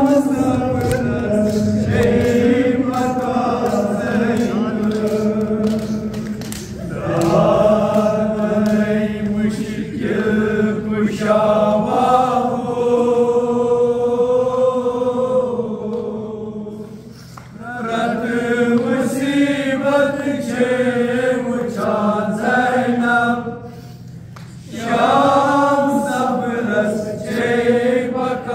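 A man chanting a Kashmiri noha, a mournful Shia lament, unaccompanied into a microphone, in long sung phrases with two short pauses in the second half.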